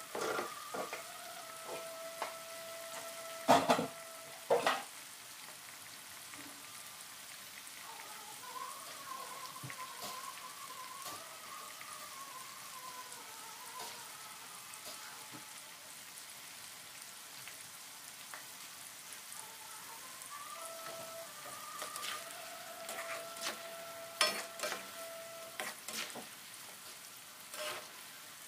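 Eggplant pieces deep-frying in hot oil in an aluminium pot, a steady sizzle. A metal slotted spatula clacks against the pot twice, loudly, a few seconds in, and gives lighter clicks later on.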